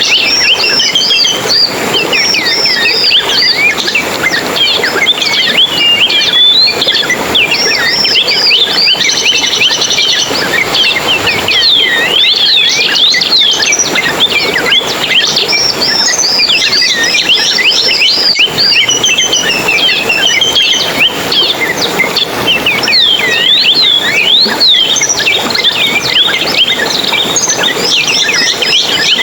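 A dense chorus of small songbirds, many rapid high chirps and warbling whistles overlapping without a break.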